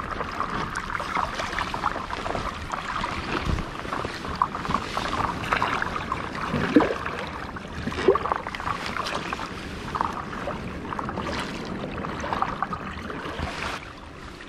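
Water splashing and rushing along the side of a moving stand-up paddleboard.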